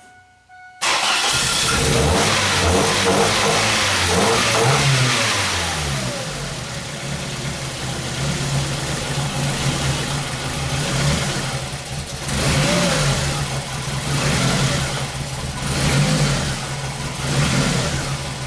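2001 Ford Focus Zetec four-cylinder engine starting about a second in, its revs flaring and then falling, then idling roughly with uneven surges. The engine is misfiring on all cylinders and running rich.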